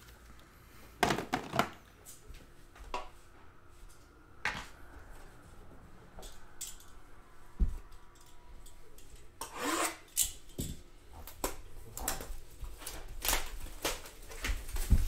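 A shrink-wrapped trading card box being handled and moved on a mat: plastic wrap and box surfaces rubbing and rustling in short bursts, with scattered taps and a single low thump about halfway through.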